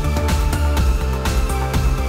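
Background music with a steady electronic beat and heavy bass.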